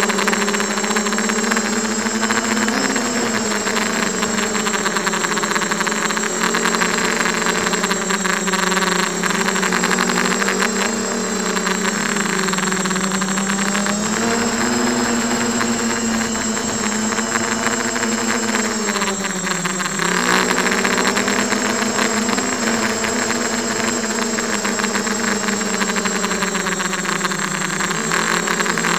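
Brushless motors and propellers of a Diatone 250 FPV quadcopter (Emax 1806 motors, HQ props) buzzing in flight, heard through its onboard camera. The pitch rises and falls with the throttle, with a few deep dips where it is briefly throttled back.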